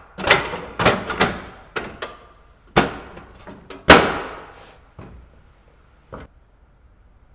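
Irregular bangs on car-body sheet metal, about eight in six seconds, as a replacement strut tower panel on a MK1 VW is knocked and worked into place. The loudest blow comes about four seconds in and rings on briefly.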